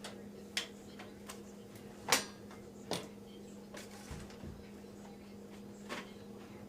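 Scattered light clicks and knocks of a motherboard being lowered and shifted into place in a metal PC case, lined up against its I/O opening; one knock about two seconds in is the loudest. A steady low hum runs underneath.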